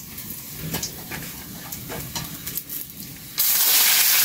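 A few light clicks, then about three and a half seconds in a loud sizzle starts abruptly: food frying in hot oil in a pan.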